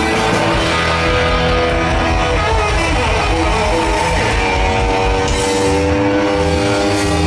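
Live rock band playing through a festival PA, led by sustained electric guitar notes over bass and drums, heard from within the crowd.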